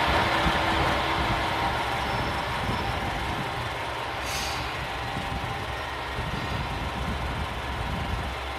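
JR Shikoku 2000-series diesel railcar pulling into the station, its engine and running noise fading as the last car moves on past. A short hiss comes about four seconds in.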